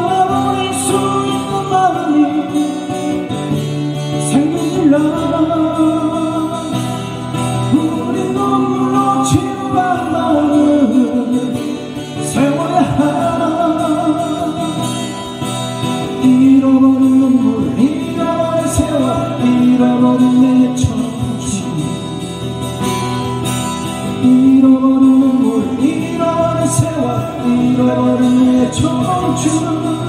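Live acoustic guitar duo: two acoustic guitars played together, with a man singing a melody over them.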